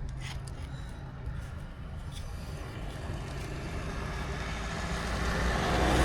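Road vehicle noise growing louder toward the end, as a vehicle approaches, over a steady low engine hum. A few faint metallic clicks come from a car jack being set under the car.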